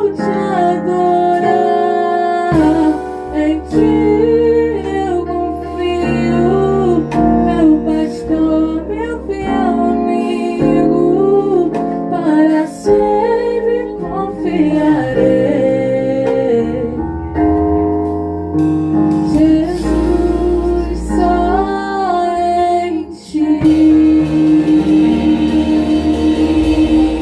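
A worship band rehearsing a gospel song: a singer carries the melody with held notes over keyboard and guitar chords. Drums and cymbals come in about three-quarters of the way through.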